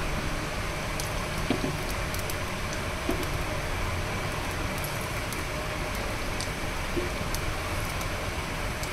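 Egg-and-flour batter cooking on a ghee-greased tawa over a gas burner: a steady sizzle and hiss, with a few faint clicks.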